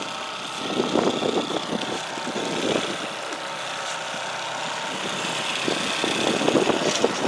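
Boat motor running steadily at slow trolling speed, with a few brief louder irregular noises about a second in and again near the end.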